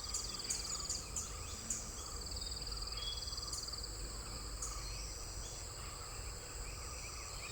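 Insects trilling steadily in two high bands, one of them a pulsing trill that comes and goes, with a few brief, faint bird chirps scattered through.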